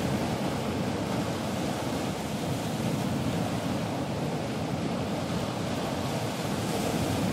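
Ocean surf washing in a steady, continuous rush of noise, with no separate wave breaks standing out.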